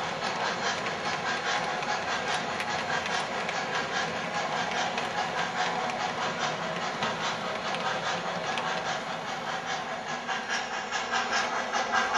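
O-gauge model train rolling past on three-rail track: a rapid, even clicking of the freight cars' wheels over a steady steam hiss from the MTH Camelback locomotive's sound system.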